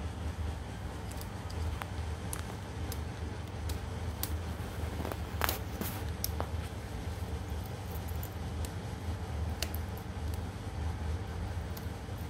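Scattered light clicks and metal ticks as a small tool on a key ring pries at the edge of a laptop keyboard's metal backing plate, with the keys jangling on the ring. A cluster of louder clicks comes about five to six seconds in, over a steady low hum.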